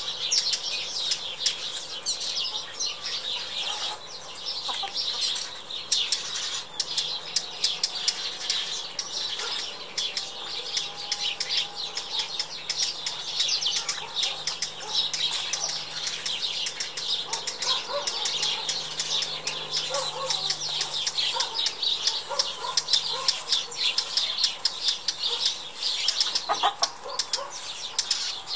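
A chorus of small birds chirping continuously, with a hen's short, low clucks now and then in the second half.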